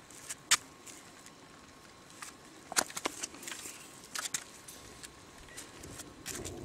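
A few sharp clicks and crackles at irregular intervals, with light rustling between them; near the end a low rumble comes in.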